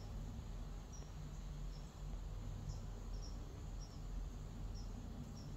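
Crickets chirping, short high chirps every half second to a second, over a steady low rumble.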